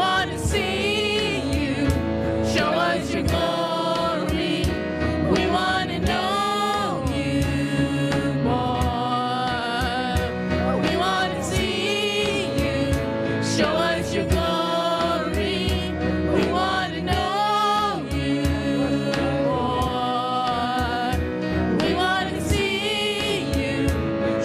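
Gospel-style worship song: a voice sings held notes with vibrato over steady instrumental accompaniment.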